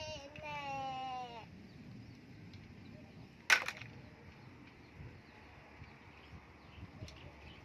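A long, high-pitched call that slowly falls in pitch and stops about a second and a half in, then a single sharp click about three and a half seconds in.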